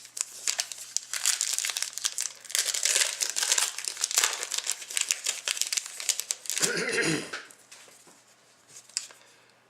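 Trading card pack wrapper crinkling and tearing as a pack is opened, with dense rustle and crackle that dies away about seven and a half seconds in.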